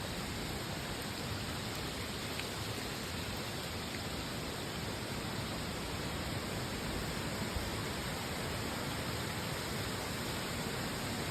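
Heavy rain falling: a steady, even hiss that does not let up.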